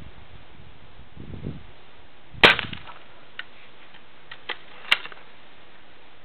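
.22 calibre air rifle firing: a sharp crack about two and a half seconds in, a few light clicks, then a second sharp snap about five seconds in.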